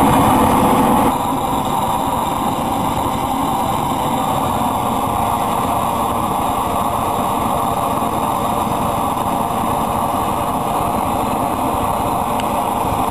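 Homemade compressor-fed burner running on vegetable oil, firing steadily: a continuous rushing noise of the air-blown flame jet. It eases slightly about a second in, then holds even.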